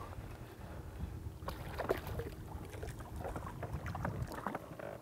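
A hooked crappie thrashing at the surface, irregular water splashes starting about a second and a half in, over a low rumble of wind and water against the boat.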